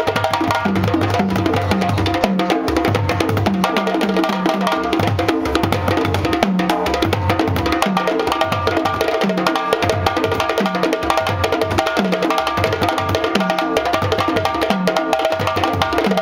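West African drum ensemble playing a fast, driving rhythm: djembés slapped and struck by hand over three upright dunun bass drums beaten with sticks, whose low notes repeat steadily beneath the hand drums.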